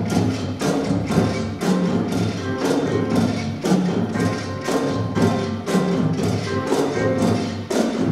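Small student ensemble of drums, keyboards, guitar and violin playing a piece, with regular drum strokes about twice a second over sustained chords.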